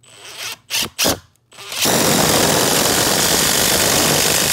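Cordless impact driver at its top speed driving a long screw into a pine board: a few short trigger bursts, then a continuous, loud, rapid hammering as the impact mechanism works under load.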